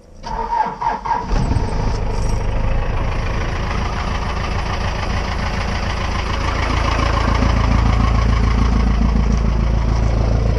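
Cold start of a Ford pickup's engine: the starter cranks for about a second, then the engine catches and settles into a steady idle.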